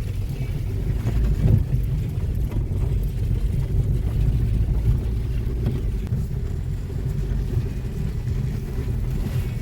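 Car driving: steady low engine and road rumble, with a brief louder jolt about a second and a half in.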